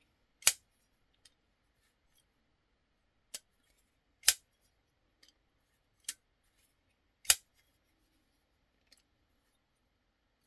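SharpByDesign Derecho folding knife's blade being flicked open and shut on its freshly oiled bearing pivot after reassembly: five sharp snaps a second or more apart, three of them loud. The action is very smooth.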